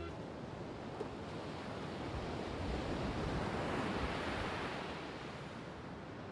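Rushing outdoor noise like wind or distant surf, swelling to a peak about four seconds in and easing off.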